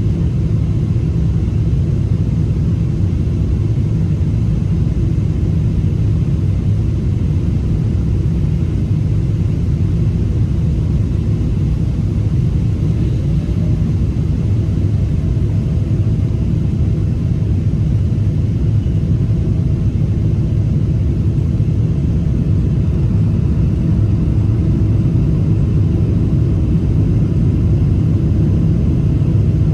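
Steady low rumble of a Boeing 787 Dreamliner's engines and airflow, with a faint steady hum joining about halfway through.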